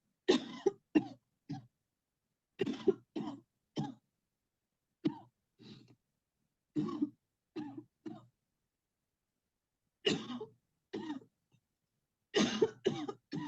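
A person coughing deliberately on cue after a long in-breath, in short runs of two to four harsh coughs with pauses between.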